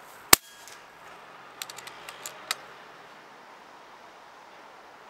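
A single shot from a short-barrelled 6.35 mm PCP air rifle: one sharp, loud crack about a third of a second in, which the shooter calls a fairly loud report for an air rifle. About a second later comes a quick run of five or six small mechanical clicks, the last one the loudest, as the rifle's action is worked.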